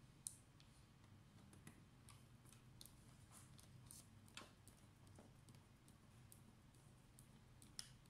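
Faint, scattered clicks of a thin metal pry tool working along the edge of a Dell Inspiron 3511's plastic bottom cover as the cover is pried loose. The sharpest clicks come just after the start, about halfway through and near the end.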